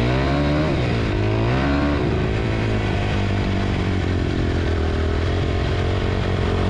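Suzuki RM-Z250 dirt bike's four-stroke single-cylinder engine running under riding load. The revs rise and fall through the first couple of seconds, then hold fairly steady with rough noise over the engine note.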